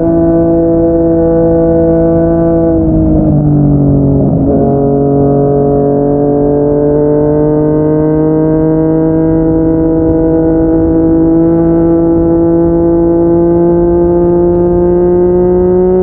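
Yamaha MT-09's three-cylinder engine through a Yoshimura R55 slip-on exhaust, running under way. Its pitch drops a few seconds in, as at a gear change, then climbs slowly and steadily as the bike pulls.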